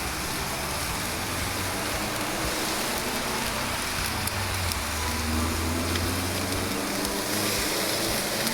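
Fish sizzling on an open grill as sauce is brushed over it, a steady hiss. A low hum swells about four seconds in and fades near seven seconds.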